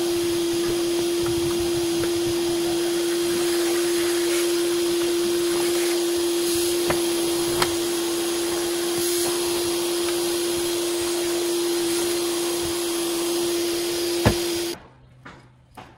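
Vacuum cleaner running steadily with a constant whine over its rushing suction noise, a few light knocks over it. It cuts off suddenly near the end.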